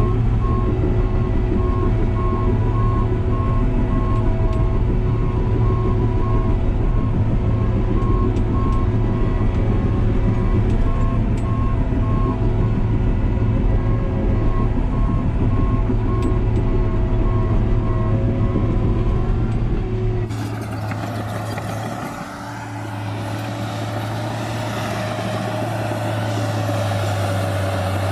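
New Holland D180C crawler bulldozer's diesel engine running steadily while its reversing alarm beeps at an even pace. About twenty seconds in the sound changes abruptly: the beeping stops and the engine carries on with more hiss and less low rumble.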